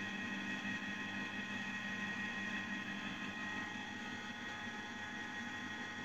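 Canon ink-tank inkjet printer running: a steady mechanical whirring with a high, even whine. The lower hum drops away about three and a half seconds in.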